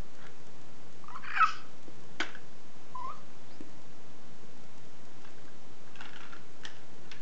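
A baby vocalising: a short high squeal about a second and a half in and a brief little coo near three seconds, with a few light clacks as plastic toy blocks knock against a plastic shape-sorter cube.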